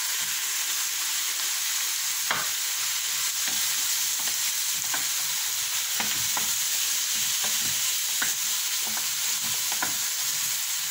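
Cubed zucchini and onion sizzling in hot oil in a frying pan, sautéing, while a wooden spatula stirs and turns them, knocking and scraping against the pan at irregular intervals.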